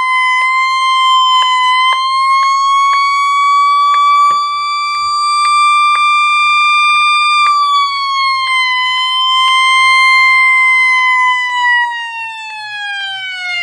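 Midland 74-109 weather radio's alert siren sounding during a siren test: a single loud, high electronic tone that drifts slightly up in pitch, then sags near the end before cutting off.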